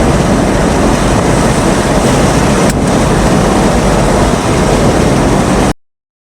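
Loud, steady rush of storm wind and heavy rain in a rain-wrapped tornado's circulation, cutting off suddenly near the end.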